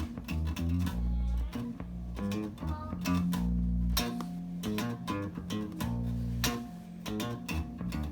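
Bass guitar played through a vintage tube compressor: plucked notes and short riffs, with several low notes held for about a second.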